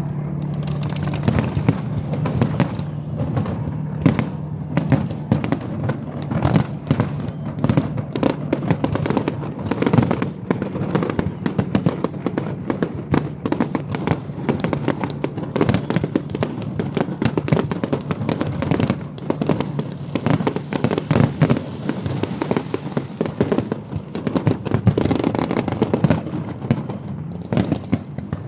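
Fireworks display: a dense, continuous run of bangs and crackles from shells bursting, several a second, with no pause.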